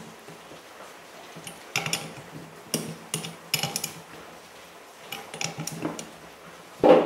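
Socket and extension clinking on the cylinder head nuts of a Honda Dio 50cc two-stroke engine as the nuts are run down by hand: scattered small metal clicks in short groups, then a louder knock near the end.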